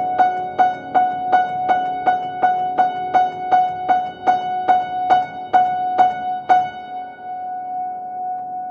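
Upright piano played with a single high note struck over and over, about three times a second, above changing lower notes. The strikes slow and stop about two-thirds of the way through, and the last notes ring on and fade.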